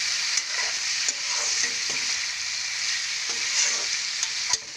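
Drumstick pods and potato pieces sizzling in hot oil in a kadai as they are stirred with a spatula, a steady frying hiss with occasional sharp taps and scrapes of the spatula against the pan.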